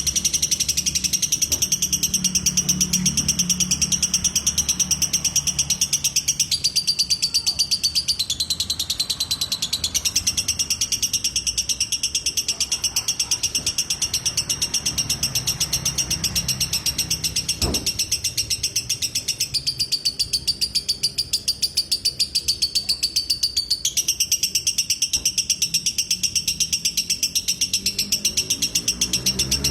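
Lovebird singing ngekek: one long unbroken run of fast, high-pitched chattering notes, many a second, shifting slightly in pitch now and then.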